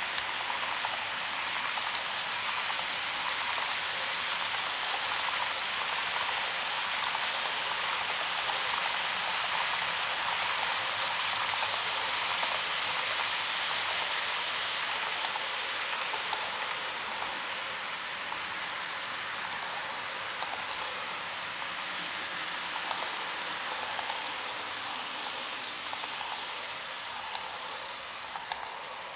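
HO-scale model freight cars rolling past on track: a steady rushing rattle of the small wheels on the rails, with faint clicks, easing off slightly near the end.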